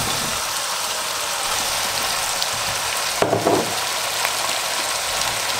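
Pork and vegetables frying in a pot, a steady sizzle, as diced raw potatoes are tipped in on top; a short clatter about three seconds in.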